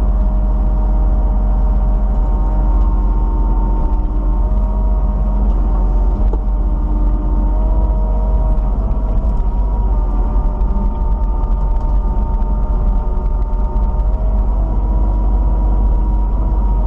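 Kubota KX91 mini excavator running under work: a steady loud diesel rumble with several whining tones that shift slightly in pitch as the hydraulics are worked.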